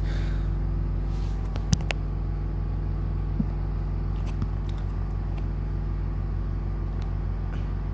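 Steady low mechanical hum, constant in pitch, with a sharp click a little under two seconds in and a couple of fainter ticks after it.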